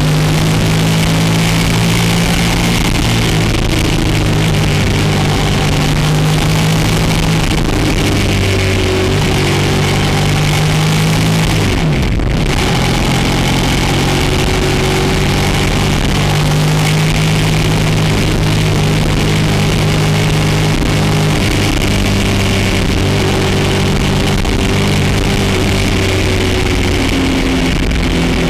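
Motorcycle engine running steadily under way, over a constant rush of noise. Near the middle the engine note dips briefly, then settles back to a steady pitch.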